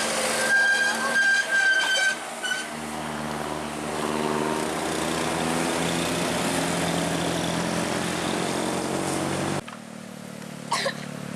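A bus horn sounds one held note for about a second and a half, followed by a short extra toot. The steady hum of the bus's engine then runs as it passes, and the sound changes abruptly near the end to a different engine hum with a brief chirp.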